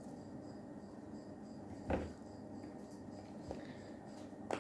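Quiet kitchen handling sounds: a soft knock about two seconds in as items are moved on the counter, a fainter knock later, and a sharp click near the end as the cap of a spice jar is opened.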